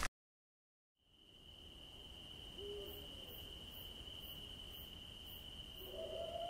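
Faint eerie film ambience: after about a second of dead silence, a steady high-pitched ringing tone fades in over a low rumble. Near the end a lower tone starts to swell.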